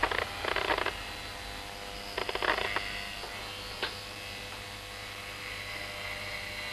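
Electric hair clippers running with a steady buzz, with short louder rasping passes as they cut into hair, twice in the first three seconds, and a single tick a little after halfway.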